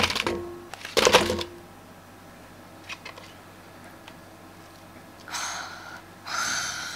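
Apple pieces dropped into a rice cooker's inner pot: two clunks with a short ring, about a second apart. Near the end come two brief rustling noises as the pork is handled into the pot with tongs.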